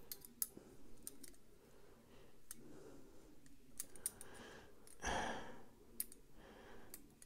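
Faint, irregular small metal clicks and taps as a folding knife's steel liners and tiny parts are handled with a pick during reassembly, while the stop pin is refitted. A short breathy rush sounds about five seconds in.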